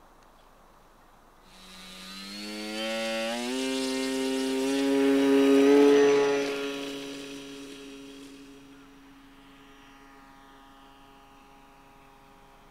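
Multiplex Mentor RC plane's electric motor and propeller throttling up for take-off, a whine that rises in pitch over a couple of seconds from about one and a half seconds in. It grows loudest as the plane passes close about six seconds in, then fades as it climbs away.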